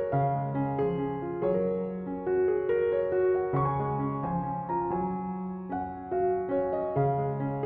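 Background piano music: a melody of separate notes over held low notes that change every second or two.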